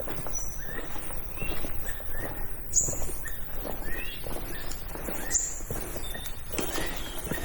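Forest birds calling, short high chirps repeated several times a second with a brief thin whistle every couple of seconds, over soft footsteps on the forest floor.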